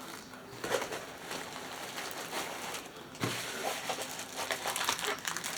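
Light, irregular rustling and small clicks of plastic packaging being handled, with a few sharper ticks.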